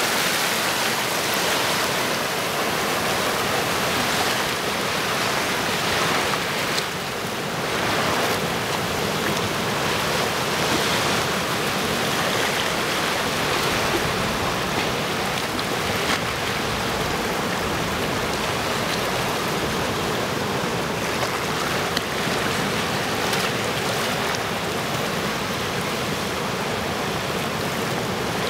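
Sea surf washing in and out among large boulders on a rocky shore, a steady rush of small waves breaking and swirling over the rocks, easing briefly about seven seconds in.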